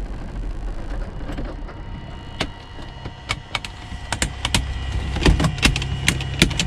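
Piston engines of a light twin aircraft idling while taxiing, heard as a steady low hum from inside the cockpit, with a faint steady high whine. Sharp irregular clicks come in from about a second in and grow more frequent towards the end.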